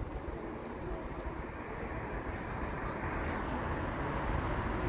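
Motor vehicle noise: a steady low rumble that slowly grows louder, like a vehicle approaching.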